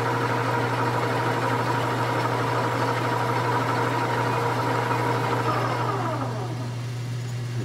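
Metal lathe running with its spindle turning a steel gear blank, a steady motor hum with a whine over it. About six seconds in the whine falls in pitch as the spindle slows down.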